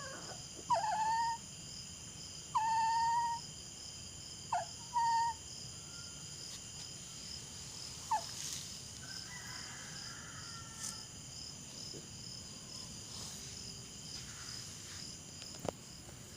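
Dog giving short, high whines or yelps, about five in the first half, each with a quick upward slide then a held note, then falling quiet. Crickets or other night insects shrill steadily underneath.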